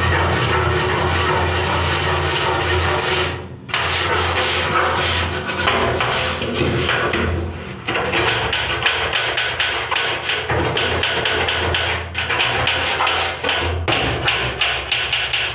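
Small brush scrubbing fast back and forth along the grooves of a ribbed bathroom door panel, a dense rasping run of strokes close to the microphone, with brief pauses about three and a half seconds in and near eight seconds. The brush is working rust stains out of the grooves.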